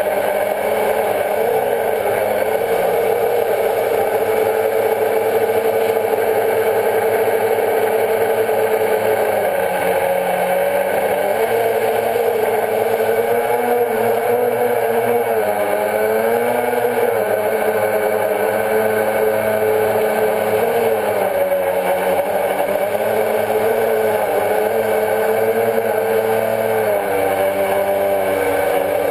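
Quadcopter's electric motors and propellers whirring, loud and steady, heard from the camera on board the drone. The pitch dips and rises several times as the motor speed changes.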